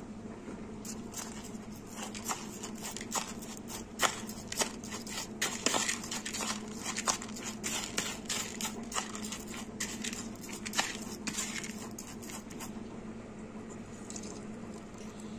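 Metal spoon stirring moistened wheat grains in a plastic bowl: a run of irregular clicks and scrapes with a soft rustle of grain, easing off near the end. A steady low hum runs underneath.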